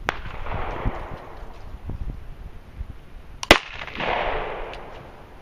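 Two shots from a Colt 1911 Commander .45 ACP pistol, about three and a half seconds apart, the second much louder, each followed by a trailing echo. The rounds are handloads with homemade primers remade from spent ones, and these ones fire.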